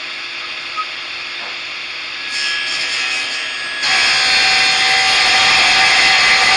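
Power saw cutting timber: after a steady hiss, the noise steps up about two seconds in and jumps much louder about four seconds in, running on evenly with a faint steady whine.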